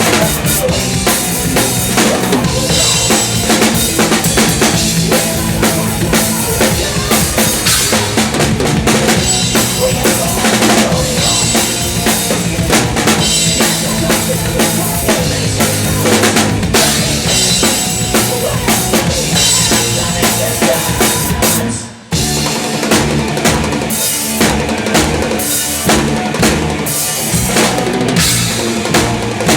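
Live progressive thrash metal band with the drum kit loud and close: fast bass drum and snare strikes driving under distorted guitars and bass. The whole band stops dead for a moment about three quarters of the way through, then crashes back in.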